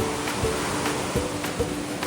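Background music with a steady beat and held notes, over the rush of ocean surf.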